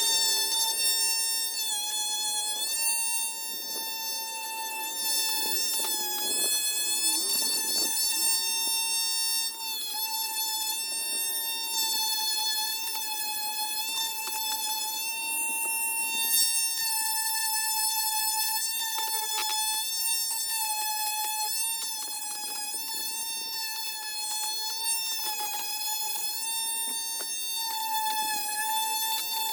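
Small high-speed electric power tool running with a steady whine, its pitch dipping briefly now and then as it meets load, over a rough grinding noise of the work.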